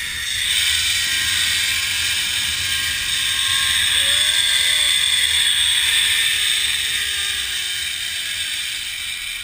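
Zip line trolley pulleys running along the steel cable: a loud, steady whizzing hiss with a faint whine whose pitch falls over the last few seconds as the rider slows toward the platform.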